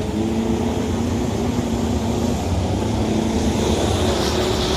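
Longtail boat engine running at a steady pitch.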